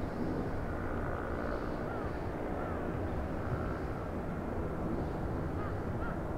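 Airbus A330 airliner on final approach to land, its engines a steady low rumble.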